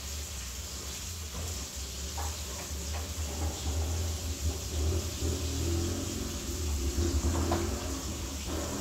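Chicken frying in oil in a pan, a steady sizzling hiss, under a low hum that grows louder from about three seconds in and eases near the end.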